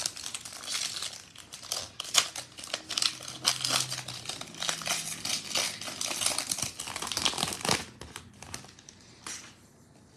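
Foil wrapper of a 2021 Panini Prizm football card pack crinkling and tearing as it is ripped open by hand. The crackling dies down about eight seconds in, leaving a few faint clicks.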